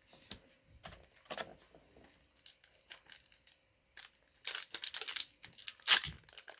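Trading cards and foil booster-pack wrappers being handled: scattered light rustles and clicks, then a denser stretch of crinkling and tearing from a little past halfway through, loudest near the end.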